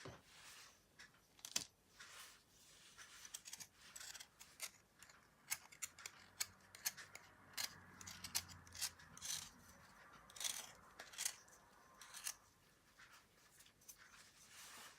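Slime being kneaded and mixed by hand: a run of small sticky clicks and pops, thickest in the middle.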